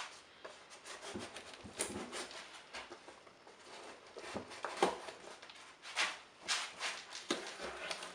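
Cardboard box being opened and its contents handled: irregular rustling, scraping and knocking, with a few sharper knocks around the middle.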